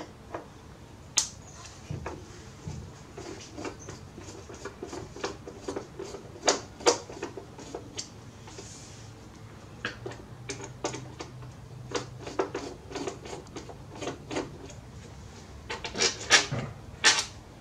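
Irregular clicks, light knocks and scrapes of a screwdriver working the screws out of a plastic radio-cassette case and the case being handled, with sharper knocks about six and a half seconds in and again near the end.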